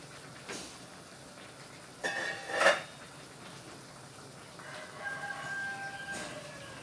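A rooster crowing: a short, loud burst about two seconds in, then one long held crow over the last two seconds.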